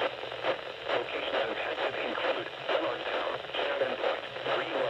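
A voice over a radio receiver, thin and muffled, with a low hum and hiss underneath.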